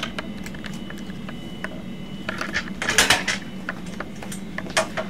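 Scattered clinks and clicks of hard objects being handled, with a brief louder clatter about three seconds in, over a steady low hum.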